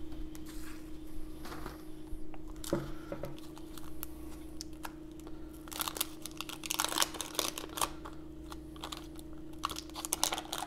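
Wax-paper wrapper of a 1990 Donruss baseball card pack being torn and peeled open by hand: scattered crinkles and crackles that grow into dense bursts of tearing from about six seconds in and again near the end. A steady low hum runs underneath.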